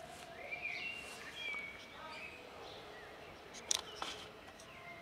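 Small birds chirping in short gliding calls over faint outdoor background noise, with one sharp click about three and a half seconds in.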